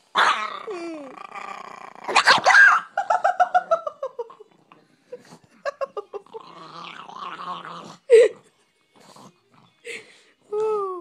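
Dog growling and barking while guarding a bone, with sharp snaps and several loud cries that slide down in pitch.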